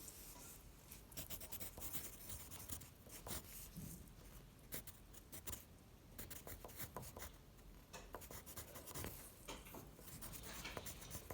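Faint, irregular crinkling of edible imitation tissue paper being handled and eaten, with many small clicks.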